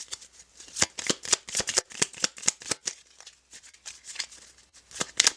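A deck of cards being shuffled by hand: quick papery flicks and slaps, several a second, with a quieter stretch in the middle.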